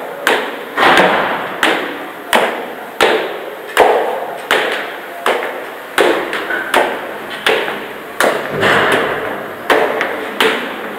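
High heels climbing stone stairs: a sharp heel click about every three quarters of a second, each ringing on in the stairwell's echo.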